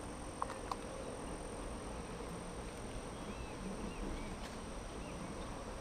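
Evening insect chorus: a steady high-pitched drone of crickets. Faint short chirps come in from about three seconds in, and there are two light clicks near the start.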